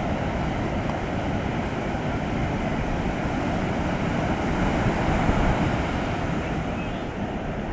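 Ocean surf breaking and washing up a sandy beach at spring-tide high water: a steady rushing of waves that swells a little about five seconds in.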